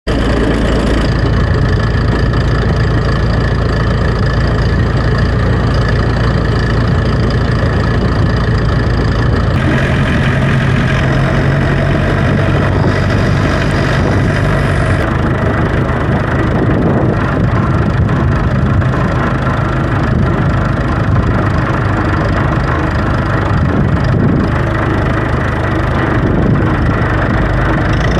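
An engine running steadily, its sound shifting about ten seconds in and again a few seconds later.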